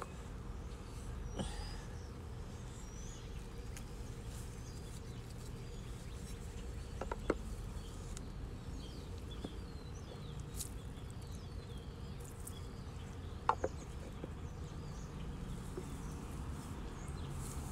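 Quiet outdoor background with a steady low rumble and faint high chirps. Twice, a light knock as the wooden lid of a cedar bowl is handled and set on.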